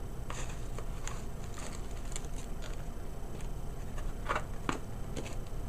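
Hands handling a satin ribbon and a box wrapped in tissue paper: scattered light rustles and small taps, two slightly louder ones a little past four seconds in, over a steady low hum.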